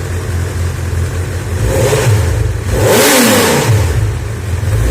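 Honda CB1000R's inline-four engine idling loudly, then revved twice. There is a short blip about two seconds in and a bigger, louder one about three seconds in, and each falls back to idle. Another rev starts right at the end.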